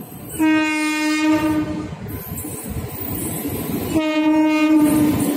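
Goods train's electric locomotive sounding its horn in two single-pitch blasts, the first about half a second in and the second about four seconds in. The rumble of the approaching train grows louder throughout.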